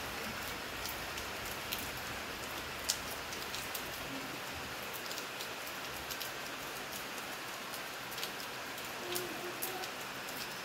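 Steady rain falling, a continuous hiss with scattered sharp ticks of drops striking nearby surfaces, one louder tick about three seconds in.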